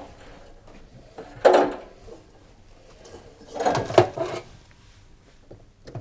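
Casing panels of a washing machine being slid and lifted off as it is taken apart: two sliding, knocking clatters, one about a second and a half in and a longer one around four seconds.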